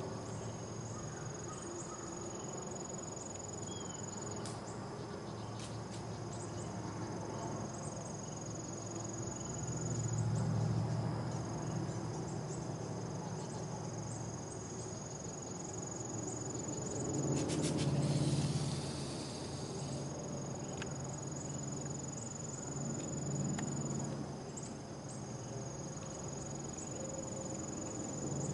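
Insects chirring steadily, with a buck deer's snort-wheeze a little past halfway: a quick run of sharp puffs through the nose followed by a drawn-out hiss. Low rumbles swell and fade in the background.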